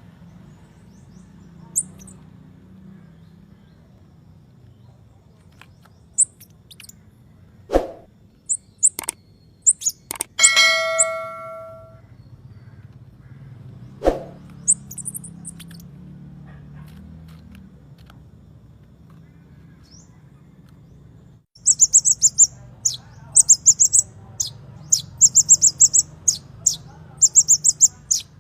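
Konin bird song recording: scattered single high chirps and a few sharp knocks over a low steady hum, one ringing, bell-like note about ten seconds in, then from about two-thirds of the way through a loud, rapid string of repeated high-pitched chirps.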